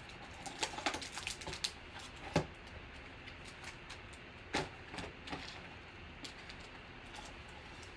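Sealed trading card packs being pulled from a cardboard display box and handled, giving light rustles of the wrappers and small taps and clicks, scattered through the stretch.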